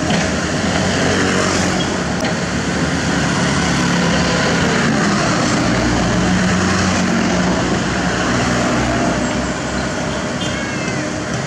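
Kobelco SK76 mini excavator's diesel engine running, with road traffic passing close by; a small pickup truck drives past about halfway through, its engine briefly loudest.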